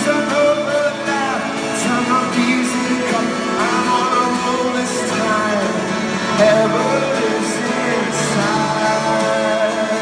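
Live band music with singing, loud and continuous, picked up by a phone from the stands of a large arena.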